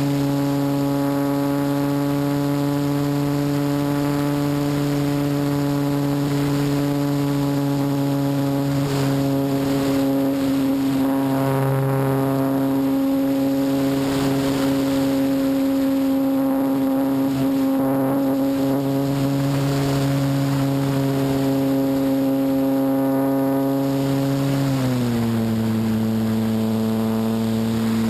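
Electric motor and propeller of a Parkmaster RC model plane in flight, a steady hum held at one throttle setting with wind noise on the microphone. About 25 seconds in the pitch drops as the throttle is eased back.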